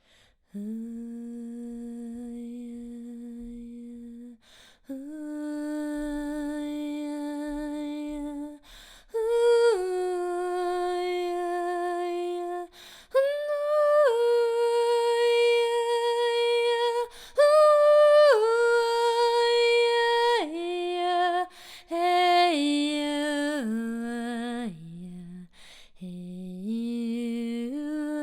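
A woman's voice singing a wordless sound-healing chant: long held notes, each a few seconds, stepping up from low tones to higher ones in the middle and back down, with brief breaths between phrases. A slight vibrato comes in near the end.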